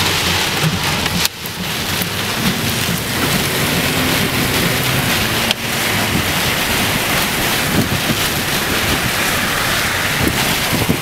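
Heavy rain and wind beating on a car, heard from inside the moving vehicle, with the engine running low and steady underneath.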